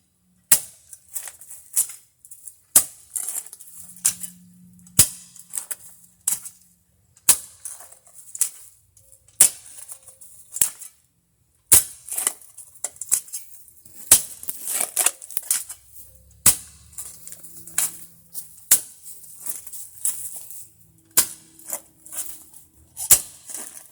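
A hand digging tool striking hard ground in a footer hole, a sharp strike roughly once a second, working against something in the hole that it can't get past.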